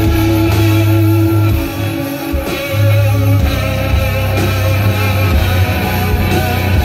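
Live band playing loud rock music with guitar to the fore over bass and drums.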